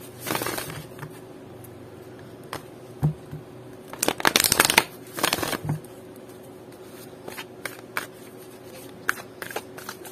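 A deck of large oracle cards being shuffled in the hands. A quick run of card-edge flutter comes about half a second in, and a longer, louder run about four seconds in. After that come scattered light clicks and slides of single cards as the deck is handled and fanned.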